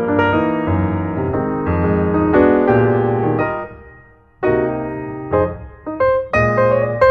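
Piano music: a run of struck notes and chords that fade after each strike, with a brief pause about four seconds in before the playing resumes.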